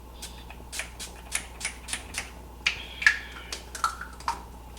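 Urban Decay All Nighter setting spray pump-bottle spritzing in a quick series of short, clicky hisses, about a dozen, louder in the second half.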